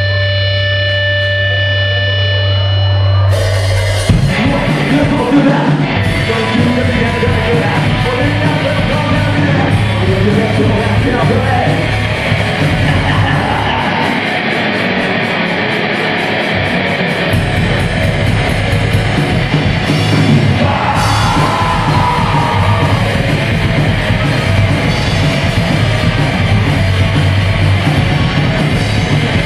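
Live rock band playing loudly: distorted electric guitars, bass and drums with a singer's vocals. It opens on a held, ringing note, and the full band comes crashing in about three to four seconds in.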